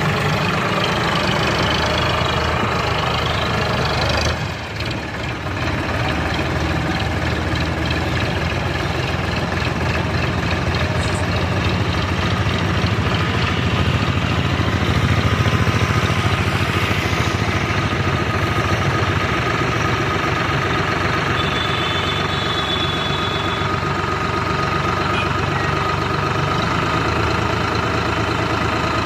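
Heavy diesel machinery engine running steadily, with a brief drop in level about four seconds in and a slight rise in the middle.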